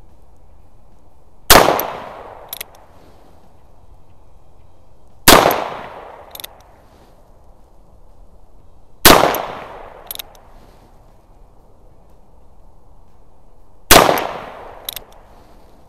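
1959 Ruger Single-Six three-screw revolver in .22 Magnum firing four single shots, about four seconds apart. Each shot has a short fading tail and is followed about a second later by a faint sharp click.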